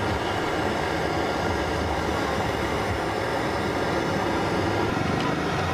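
Water pouring from a bottle and splashing into a pot of soup, over a steady rumble of street traffic.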